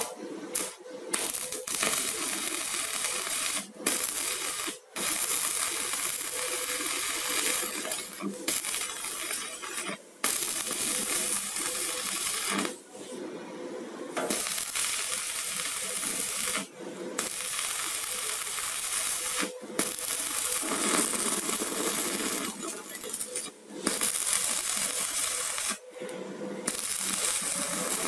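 Stick (MMA) arc welding with a mini 250 inverter welder: the electrode's arc crackling and hissing steadily. The arc is broken off and struck again about ten times, with short silent gaps every two to three seconds.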